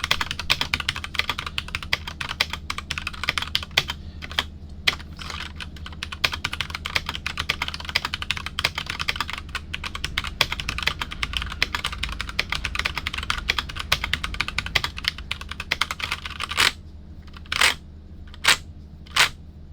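Typing on a keyboard: a fast, steady run of key clicks, thinning to a few separate key presses in the last three seconds.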